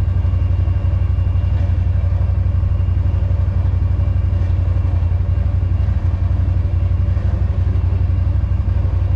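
ATV engine running steadily with an even, unchanging pitch.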